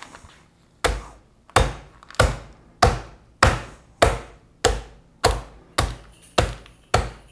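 A flat-faced meat pounder beating thick chuck steaks through a plastic zip bag on a metal sheet pan, tenderizing the tough cut: eleven hard, evenly spaced thuds, a bit under two a second, starting about a second in.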